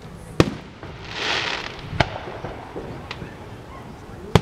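Aerial firework shells bursting: three sharp bangs, about two seconds apart, with the first and last the loudest. A brief hiss comes between the first and second bang.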